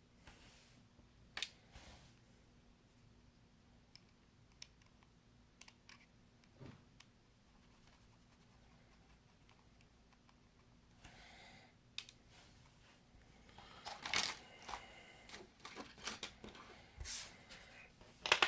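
Small, scattered clicks and taps of a precision screwdriver and small tools handled against an iPhone SE while its bottom screws are removed, growing busier with clicking and rustling in the last few seconds.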